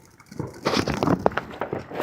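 A consumer firework going off, with a rapid series of sharp crackles and pops that starts about half a second in and grows denser.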